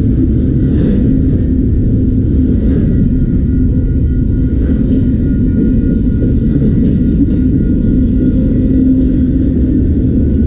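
Autorack freight train rolling past with a steady, loud low rumble and a constant hum.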